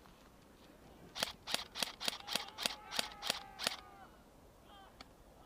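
An airsoft gun fired nine times in quick succession, about three or four sharp cracks a second, starting about a second in and stopping near the middle. Birds chirp faintly behind it and after it.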